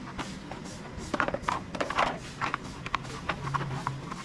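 Irregular light clicks and knocks from plastic car interior trim panels being handled and scrubbed.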